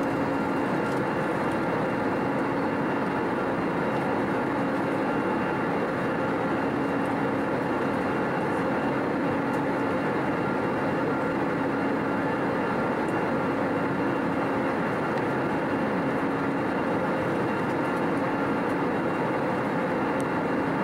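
Steady in-flight cabin noise of an Airbus A320neo: an even roar of airflow and engines with a steady hum running through it.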